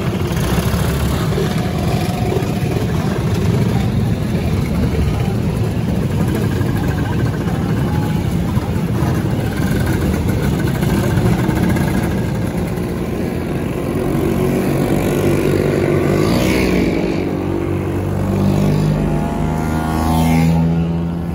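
Many Vespa scooter engines running and revving together in a crowd of riders moving off. Near the end a single scooter engine rises in pitch as it accelerates.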